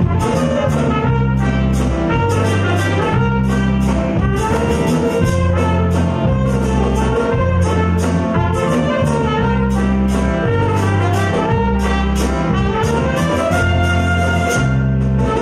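Live band playing with trumpet and saxophones over bass guitar, keyboard and drums, keeping a steady beat.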